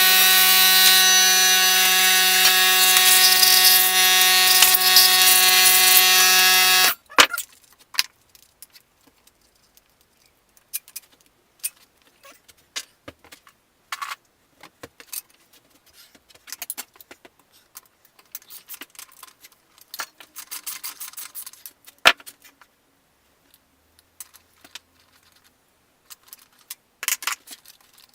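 Air compressor running loudly and steadily for about seven seconds, a hum with hiss, then cutting off abruptly. After it come scattered light metallic clicks and clinks of tools and engine parts being handled.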